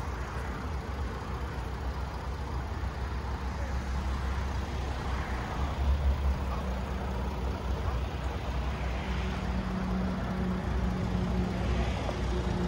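Mercedes-Benz E-Class engine idling steadily, a low continuous rumble.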